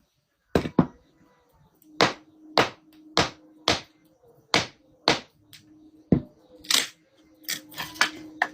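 Repeated chopping blows, about a dozen sharp strikes coming irregularly, roughly one or two a second.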